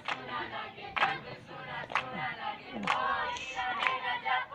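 A group of young voices singing together, with a sharp beat about once a second.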